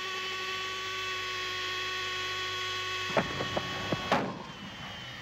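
A steady, even hum with several pitches stacked together, held level for about four seconds. A few sharp clicks come near its end, and it then cuts off suddenly.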